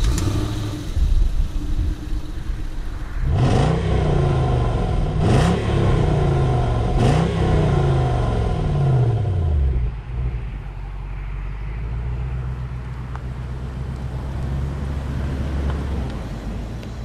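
The 4.2-litre supercharged V8 of a 2006 Range Rover L322, heard at its twin tailpipes, idling and then revved three times, each rev climbing and falling back, about two seconds apart. It then settles to a steady low idle.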